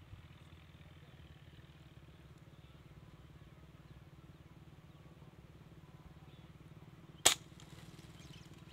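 A scoped air rifle fires once, a single sharp crack about seven seconds in, over a faint steady low rumble.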